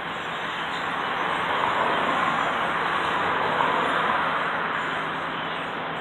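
The massed calling of a huge flock of black birds overhead, blending into one dense, continuous chatter that swells over the first couple of seconds.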